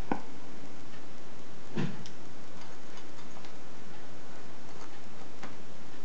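Scattered light clicks and ticks of lock picking tools working the pins of a 75 mm solid-brass bayonet padlock. Two sharper clicks come near the start and about two seconds in, with fainter ticks between.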